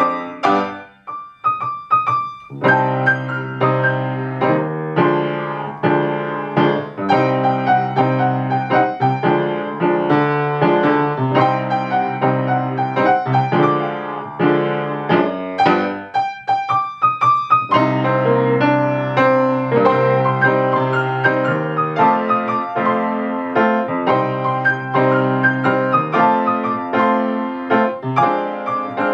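Grand piano played four hands as a duet, with chords and melody going on continuously and a brief thinner, quieter passage about a second in.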